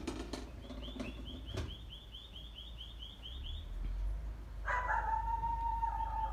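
A dog whining in a long, high, slightly wavering tone that starts about a second and a half before the end. Before it, a bird chirps rapidly, about five calls a second, for some three seconds, and a few short sharp sounds come near the start.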